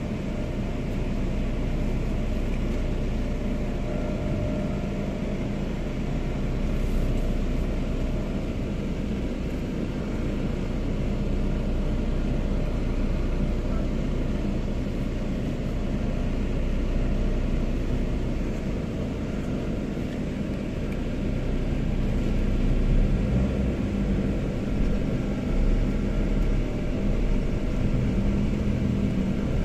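Steady low rumble of vehicle engines and city traffic, getting a little louder about two-thirds of the way in.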